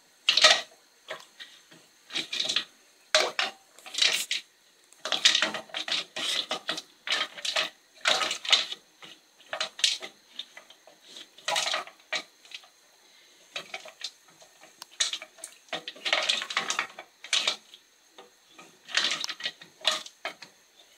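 Wooden spoon stirring stones around in a metal saucepan of milk, the stones knocking and scraping against the pan in irregular strokes.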